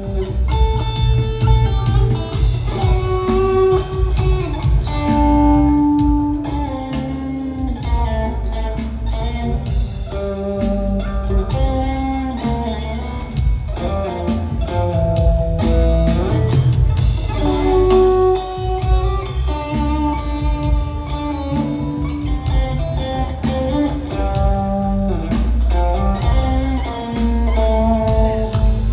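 Live rock trio in an instrumental break: electric guitar playing a bending melodic lead line over bass guitar and drums, with steady cymbal ticks.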